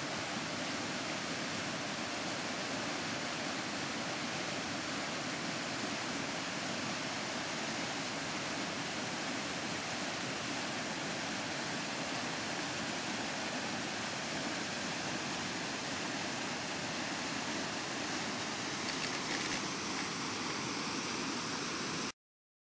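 Mountain river in spring rushing over rocks in whitewater: a steady, even rush that cuts off suddenly near the end.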